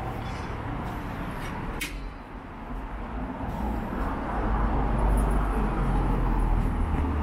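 City street traffic noise with vehicles passing. A deep low rumble swells about halfway through, and there is one sharp click a little under two seconds in.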